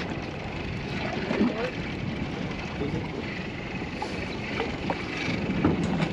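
Steady wind noise on the microphone, with faint voices about a second in and again near the end.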